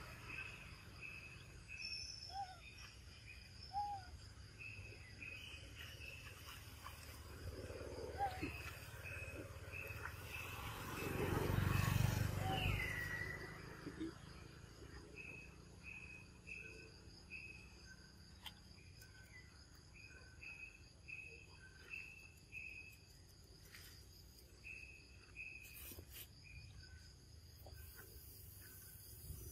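Outdoor tropical ambience: insects trill steadily at a high pitch while a bird gives strings of short, evenly repeated chirps, with one falling call about halfway through. A low rumble swells and fades a little before the middle.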